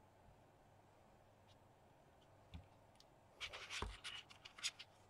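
Hands handling small plastic and magnet pieces on a desk mat: a faint click, then from about three and a half seconds in a short run of scraping and clicking with one low knock.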